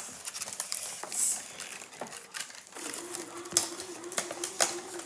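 Plastic toy packaging being handled and pried open: irregular sharp clicks, snaps and crinkles. A steady low hum comes in about three seconds in.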